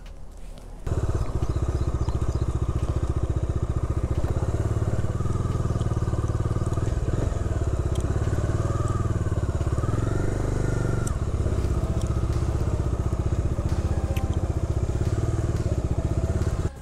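Bajaj Dominar 250 single-cylinder motorcycle engine running steadily at low riding speed, its exhaust beat pulsing evenly; it starts abruptly about a second in.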